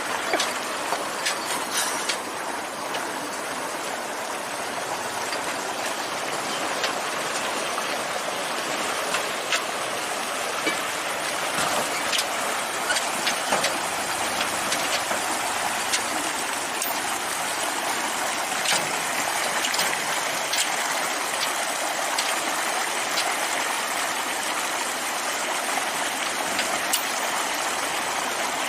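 Running water rushing steadily, with scattered light clicks and taps.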